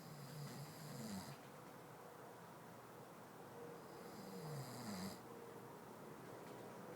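A man snoring: two faint snores, each lasting about a second and a half, the second following about four seconds after the first.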